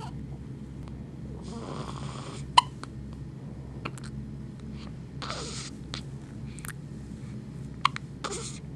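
A newborn baby only a few hours old hiccuping: several short, sharp hics a second or two apart, the loudest about two and a half seconds in, with short hissing noises in between.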